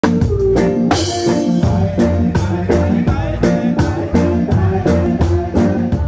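Reggae band playing to a steady beat, with electric guitar and drum kit over a heavy bass line.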